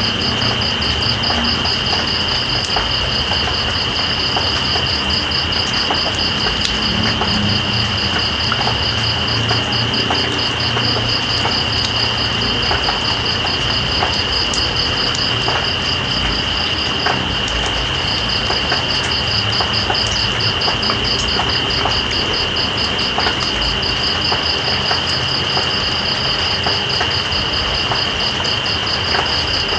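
Night insects, crickets, calling over steady rain: one continuous high trill and a second rapidly pulsing trill that pauses briefly about halfway through. Under them is the hiss of rain with scattered drips and a low rumble.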